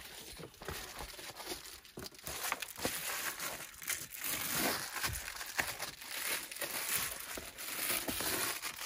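Reflectix foil bubble-wrap insulation crinkling and crackling irregularly as it is handled and pressed into a car door's window frame, with scattered small clicks.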